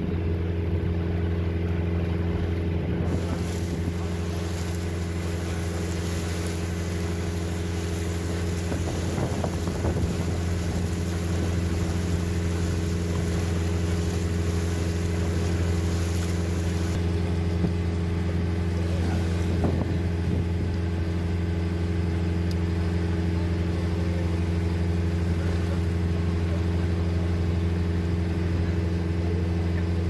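Motorboat engine running steadily at cruising speed, an unchanging low hum.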